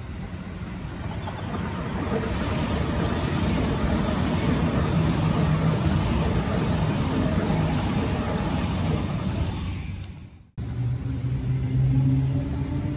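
Electric train running past with a steady rumble and rush that swells over the first two seconds and fades out about ten seconds in. After an abrupt break, a train's motor whine rises slowly as it picks up speed.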